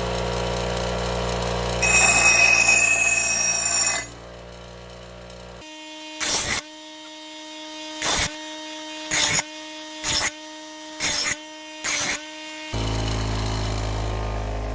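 Grinder running with a steady motor hum, then a louder, harsher grinding pass for about two seconds as the axe head's edge is pressed to the finer wheel. In the middle come six short, sharp bursts about a second apart, then the steady hum returns near the end.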